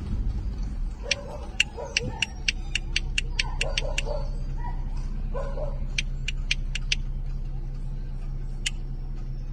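Shod horses' hooves clicking on an asphalt street in runs of quick, even beats, about four a second, over a low steady hum.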